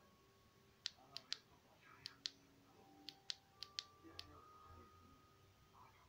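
Side switch of a Xanes PB01 LED flashlight clicked about ten times, mostly in quick pairs, as it is cycled through its modes.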